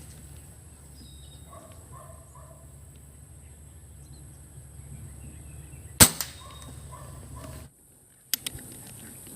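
A single shot from a PCP air rifle, a sharp crack about six seconds in. Near the end, after a brief dropout, come two quick sharp clicks.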